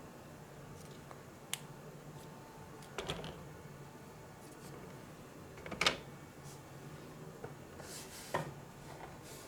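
Light clicks and taps of small plastic miniature dishes and food pieces being handled and set down, about five in all, the loudest about six seconds in.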